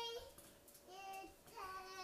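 A toddler's high-pitched sing-song babbling: a brief call at the start, then two drawn-out calls, the last one sliding down in pitch at its end.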